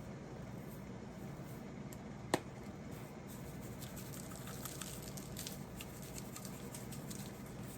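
Quiet room hum with faint, scattered light ticks as salt is sprinkled over raw tilapia fillets, and one sharp click about two seconds in.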